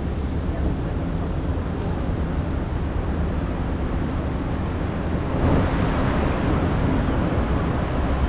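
Steady low rumble of a ferry's engines under rushing wind and water noise; the rushing grows louder about five and a half seconds in.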